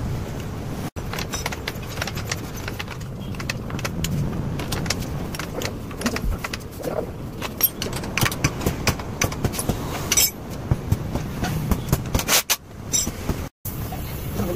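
Metal clinks and knocks of hand tools working on a motorcycle's rear shock absorber mounts, coming thick and fast in the second half, over a steady low background rumble.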